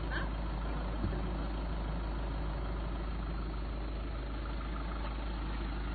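Vehicle engine idling steadily with a low hum, with one light knock about a second in.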